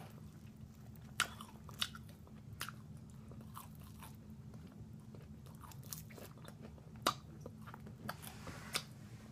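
Close-up chewing of crispy fried chicken, with a handful of sharp, irregularly spaced crunches between quieter chewing.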